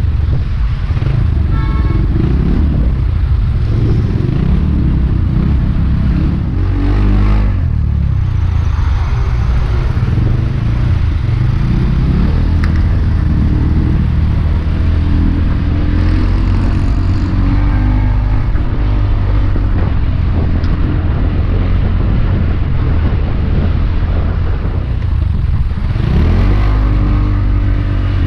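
Small motorbike engine running at road speed, with road and wind noise; the engine pitch rises briefly near the end as it speeds up.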